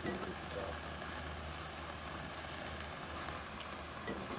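Sauced porterhouse steaks sizzling over a charcoal grill: a steady hiss with faint crackles, under a low steady rumble.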